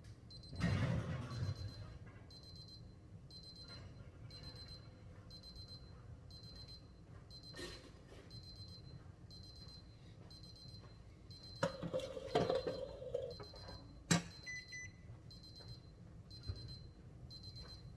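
Kitchen oven timer beeping in a steady repeating pattern of quick high beeps, signalling that the pie crust's baking time is up. A few clatters and knocks come near the start and again about two-thirds through.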